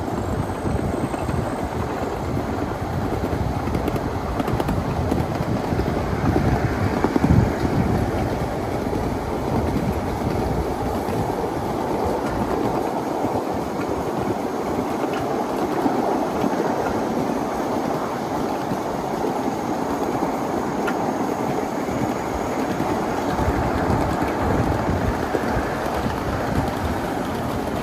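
A 1/8-scale live steam train running along its track: a steady rumble with wheels clattering on the rails.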